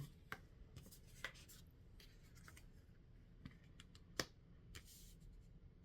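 Near silence with a few faint clicks and rustles of tarot cards being handled on a table; the sharpest click comes about four seconds in.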